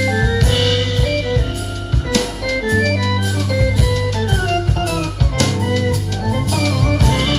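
Instrumental music with a drum beat, a steady bass line and a held, organ-like keyboard melody, played through a pair of Pioneer S-Z82V three-way bookshelf speakers driven by a Panasonic SU-D5500 amplifier.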